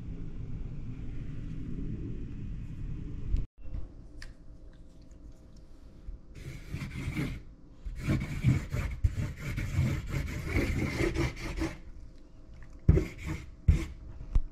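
Broad felt nib of a 10 mm Molotow dripstick marker rubbing and scraping across a hard tabletop as a tag is written, in long scratchy strokes from about six seconds in, with a few short strokes near the end. A low rumble comes first.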